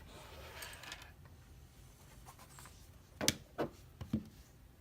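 Faint rustling, then three sharp clicks a little past three seconds in, from hand tools and a euro cylinder lock being handled as it is taken apart.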